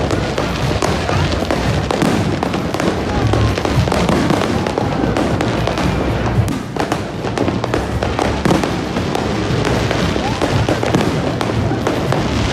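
Aerial fireworks display: dense, continuous crackling and popping with many sharp bangs, barely letting up, with a brief lull just past the middle.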